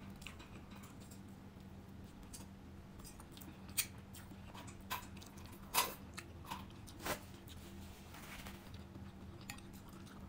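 Close-up eating sounds: chewing and mouth clicks from someone eating rice and crisp-fried milkfish, with a few sharper mouth sounds about four, six and seven seconds in, over a steady low hum.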